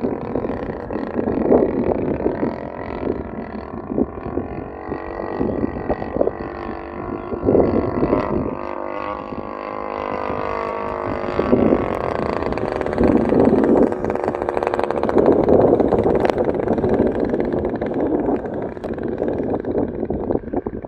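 Several radio-controlled model airplanes, among them a Piper PA-18 scale model, flying overhead together; their engines buzz, the pitch sliding up and down as they pass and change throttle.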